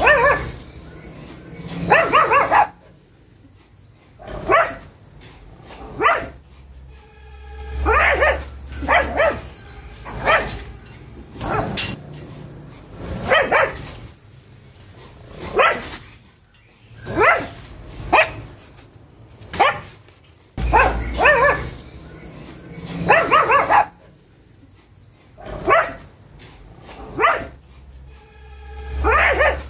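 A pug barking over and over: single barks and short runs of barks, one every second or two.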